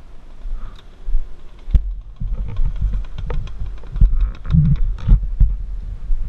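Muffled low rumble with irregular thumps and sharp knocks from a helmet-mounted action camera as the pit bike rolls slowly over the ground; the knocks come thicker from about two seconds in.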